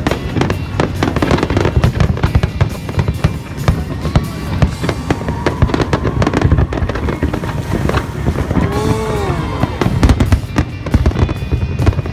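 A fireworks display: shells burst in rapid, dense bangs and crackles throughout, with music playing along.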